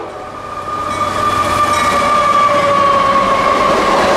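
The lead pair of diesel locomotives on a CSX freight train, the first a GE AC44CW, passing close at speed. Engine and rail noise grow louder, with a high steady whine that slides slightly lower in pitch as the units go by.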